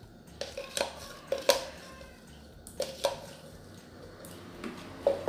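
Red plastic spoon knocking and scraping against a plastic measuring jug and basin, several sharp, irregular clacks, while thick detergent is worked out of the jug into the mix.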